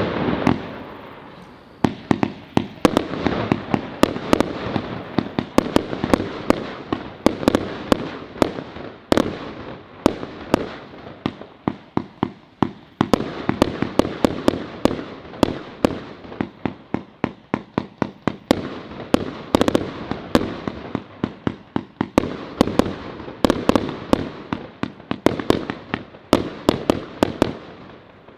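A 239-shot consumer fireworks compound cake firing in rapid succession: shots launching and shells bursting overhead with sharp cracks, several a second, the pace changing, with short lulls about a second in and about halfway through.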